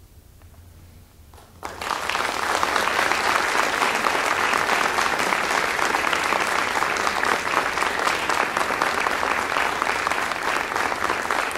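An audience applauding. A quiet pause of under two seconds comes first, then the clapping starts suddenly and keeps going steadily.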